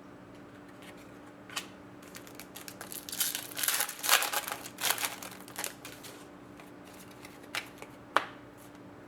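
Trading cards and pack wrapping being handled: a run of crinkling and rustling in the middle, with a few short light clicks before and after.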